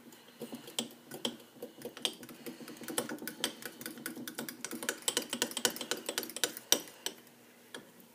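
A utensil stirring cake batter in a coffee mug, clicking and tapping against the cup's sides in quick, irregular strokes that stop about a second before the end.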